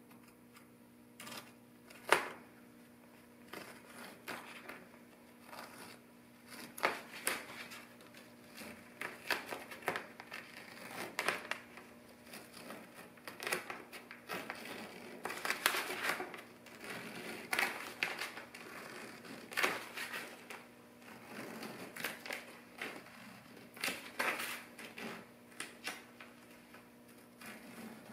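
Blue painter's tape being peeled off a fiberglassed plywood hull while a razor blade cuts the fiberglass cloth along the tape line: a long series of irregular crackling, tearing strokes, with one sharp click about two seconds in.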